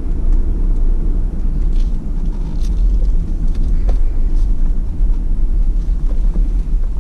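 Engine and road noise of a moving vehicle, heard from inside the cabin as a steady low rumble.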